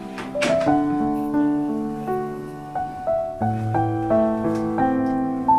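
Background piano music: a slow melody of notes that start crisply and are held, changing every half second or so.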